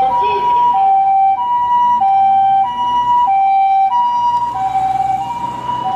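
Japanese ambulance's two-tone siren sounding, alternating evenly between a higher and a lower tone about every two-thirds of a second, with a low vehicle rumble beneath.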